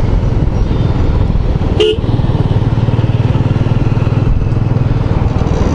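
Royal Enfield Bullet 350's single-cylinder engine running on the move, a steady low beat that evens out about two seconds in. A very brief pitched blip sounds just before that.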